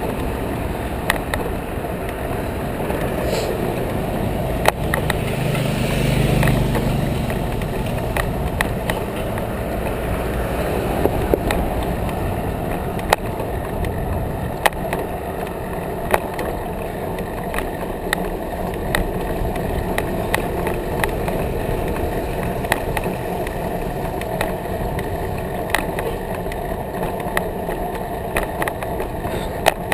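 Ride noise from a bicycle-mounted action camera: tyres rolling on pavement with a steady rumble and frequent small clicks and rattles over bumps, with motor traffic passing alongside. The sound swells louder about six seconds in.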